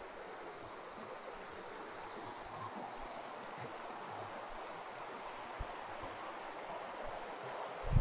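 River water flowing steadily past a stony bank, an even rushing sound.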